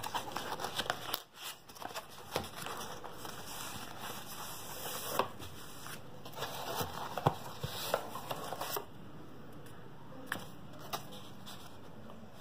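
Hands opening cardboard box flaps and handling plastic wrapping: irregular rustling and crinkling with small clicks and scrapes.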